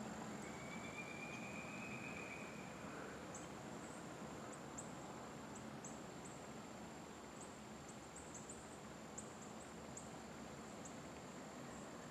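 Faint outdoor ambience: a steady high thin whine, with scattered short, very high chirps that come thicker from about three seconds in. A faint thin tone runs through the first three seconds.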